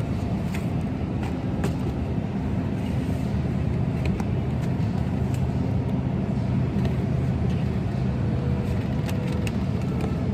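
Steady low hum of a supermarket freezer aisle, with a few light clicks and taps scattered through it.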